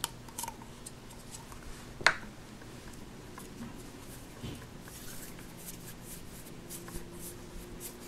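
Soft rustling and small clicks of hands pulling a lump of Play-Doh modeling compound out of its plastic can and kneading it, with one sharp click about two seconds in.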